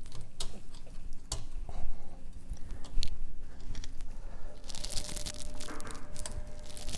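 Steel roller chain clicking and rattling as it is worked by hand onto an electric dirt bike motor's small drive sprocket, with scattered clicks and a denser run of rattling near the end.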